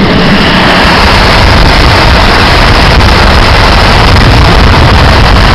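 Vehicle driving steadily on a wet road in the rain: a loud, even low rumble with a constant hiss over it.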